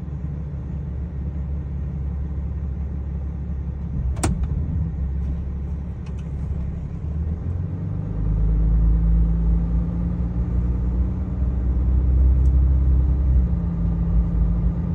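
2007 Dodge Ram pickup's engine idling, heard from inside the cab, with one sharp click about four seconds in. From about eight seconds in the engine gets louder and deeper as the truck drives off.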